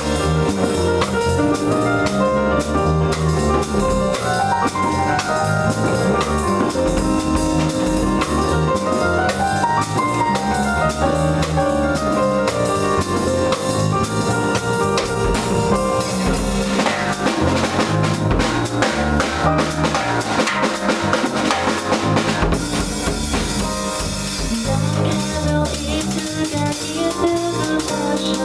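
Small jazz band playing live: keyboard, electric bass guitar and a drum kit. The drums and cymbals grow busy with many sharp hits about two-thirds of the way in, then ease back.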